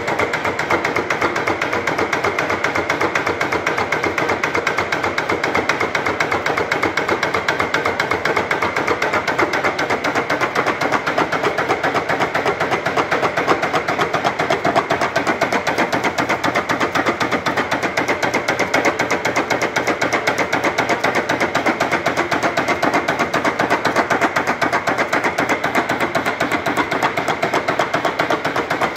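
Belt-driven Ajax mechanical power hammer running, its ram striking in a rapid, even rhythm of blows that continues without a break.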